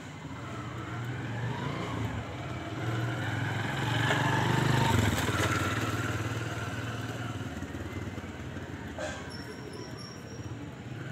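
A motorcycle passing close by, its engine growing louder to a peak about halfway through, then fading away.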